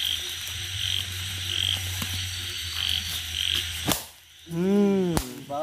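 Frogs calling: short high calls repeat every half second or so over a low steady hum. After a click about four seconds in comes one louder drawn-out cry that rises and then falls in pitch.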